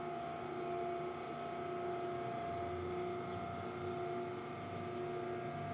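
Bias-tape cutting machine running steadily with an even motor hum. It has not yet been oiled, and the owner takes its noise for a sign that it needs lubrication.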